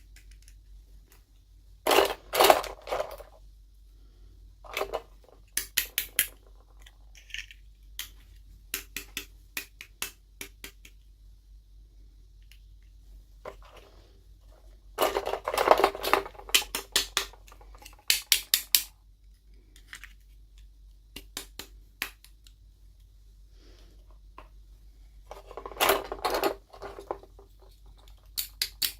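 Toy packaging being handled and opened: three spells of plastic crinkling and rustling, with many small sharp clicks and taps of hard plastic pieces between them.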